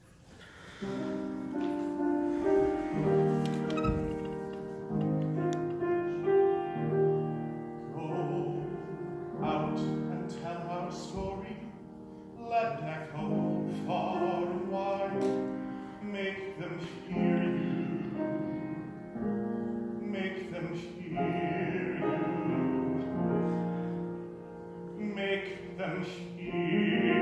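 Piano playing an accompaniment introduction of sustained, shifting chords, starting about a second in.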